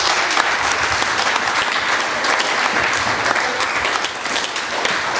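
Audience applauding: many people clapping steadily, easing slightly about four seconds in.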